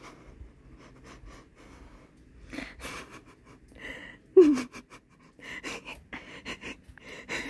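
A woman's short, loud cry falling in pitch about four and a half seconds in, followed by quick, breathy panting.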